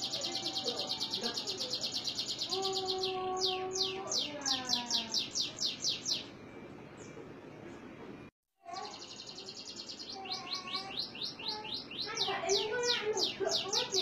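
Domestic canary singing in fast high trills of rapidly repeated notes, pausing about six seconds in and breaking off in a short dead gap a little after eight seconds before resuming. A lower, drawn-out call with a falling end sounds underneath about three seconds in.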